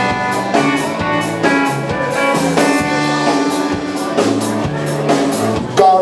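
Live band playing the instrumental intro of a song: a drum kit keeps a steady beat under held chords.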